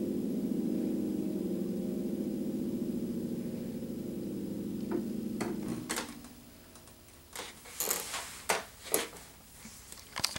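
A low chord on an out-of-tune white Yamaha grand piano ringing and slowly fading, then damped off about six seconds in. Near the end comes a series of sharp clicks and knocks.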